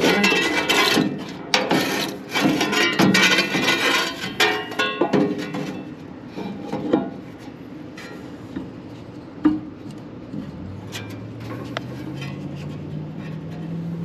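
A metal condenser fan blade rattles and clinks against the motor shaft and hub as it is worked into place by hand: a busy clatter at first, then scattered single clicks with one sharp click. A low hum rises slowly in pitch over the last few seconds.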